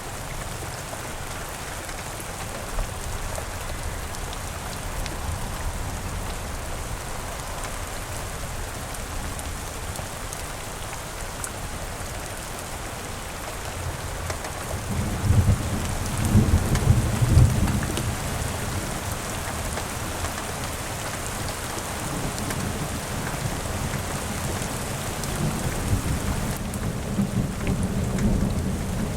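Steady rain falling, with a low rumble of thunder rolling in about halfway through and softer rumbles again near the end.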